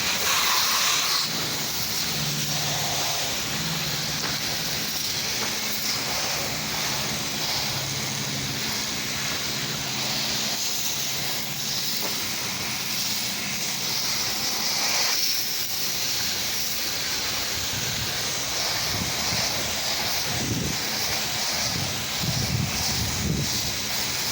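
A 4-gallon-a-minute, 4,000 PSI Hotsy pressure washer spraying: a steady hiss of water and cleaning solution from the wand, with the machine's engine running underneath. It is applying the chemical to dirty house siding.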